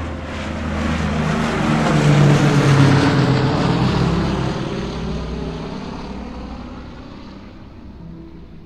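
Propeller aircraft flying past: the engine sound swells to its loudest about two to three seconds in, drops in pitch as it passes, and fades away.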